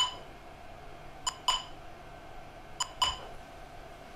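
Sync-test beeps from a phone app, a short pitched beep about every second and a half, over a steady hum. Each beep is heard twice, about a fifth of a second apart: once on the direct audio channel and again after passing through the Hollyland Syscom 421 wireless link, whose delay this shows.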